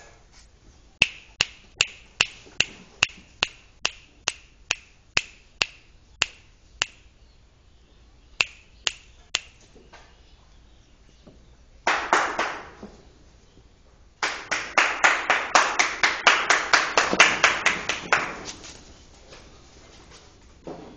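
A run of sharp, evenly spaced clicks, about two or three a second. After a pause comes a short rustling burst, then a dense run of rapid clicks over a hiss that fades out near the end.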